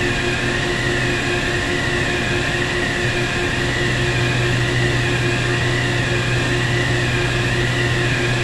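Industrial wire-plant machinery running steadily: a constant low hum under a high whine that wavers up and down about once a second.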